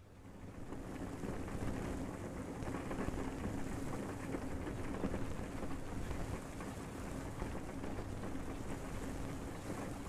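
Steady rushing and washing of water, swelling in over the first second or so and then running on evenly.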